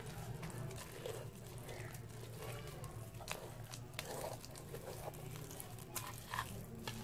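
Faint wet squishing and light taps of fingers rubbing spice paste into a whole pomfret on a ceramic plate, a few soft ticks here and there over a low steady hum.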